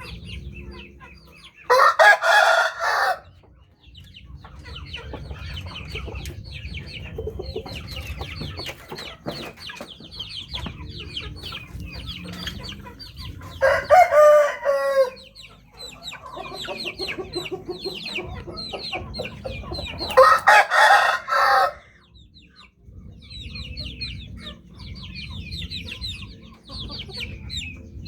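Bangkok (Thai game) roosters crowing loudly three times, each crow lasting about a second, with steady clucking from the flock in between.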